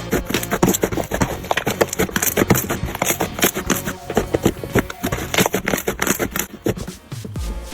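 Slime being squished and worked by hand, a rapid, irregular run of small crackling clicks that thins out near the end.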